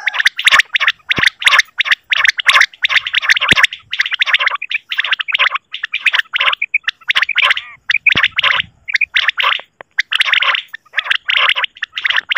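Recorded quail (batair) calls played as a hunting lure for netting quail: short calls repeated rapidly in a dense series, with brief gaps between groups.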